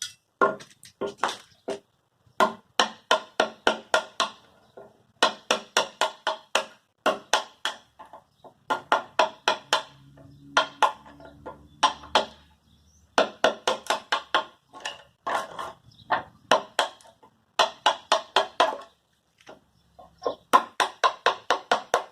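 Quick runs of sharp hammer blows on wood, about four or five a second, stopping and starting again every few seconds.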